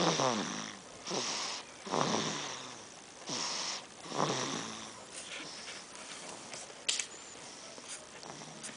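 Baby snoring: about three snoring breaths in the first five seconds, each a breathy hiss followed by a short pitched snore, about two seconds apart. The breathing then turns quieter, with a single sharp click about seven seconds in.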